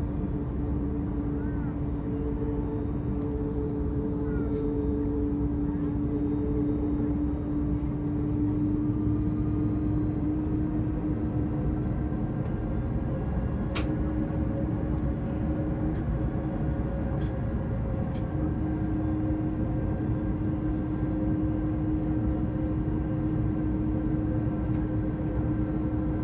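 Jet airliner engines running steadily at low power: an even rumble with a constant hum over it, and no rise in level. A few faint clicks sound around the middle.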